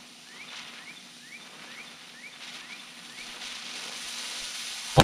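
Burning fuse of a 1 g flash-powder firecracker hissing, getting louder over the last couple of seconds, while a bird repeats a short rising chirp about twice a second. At the very end the firecracker goes off with one sharp, loud bang.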